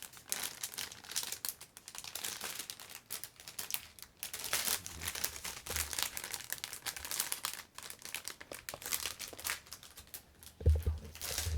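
Crinkly wrapping being handled and pulled off a new cat toy, a long irregular crackling and rustling. A low thump near the end.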